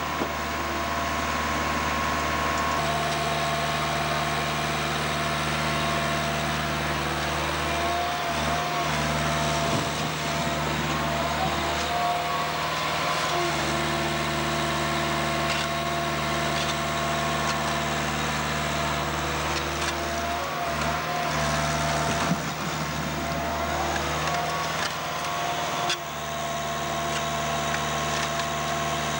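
The diesel engine of farm machinery running steadily at constant speed, a continuous hum of several steady tones that shifts slightly a few times.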